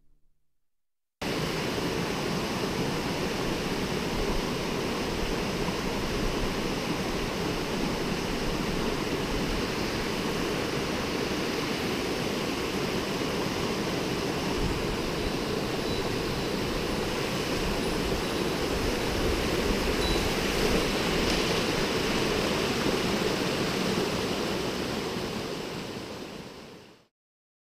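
Mountain stream rushing over rocks and a small cascade, a steady rush of water. It starts abruptly about a second in and fades out shortly before the end.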